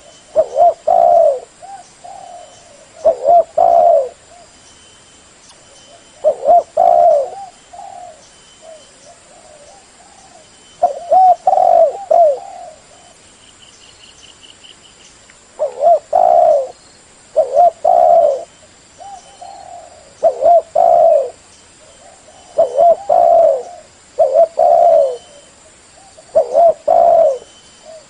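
Spotted dove cooing loudly and repeatedly, in short phrases of two or three coos every two to three seconds, with a longer pause about eight to eleven seconds in.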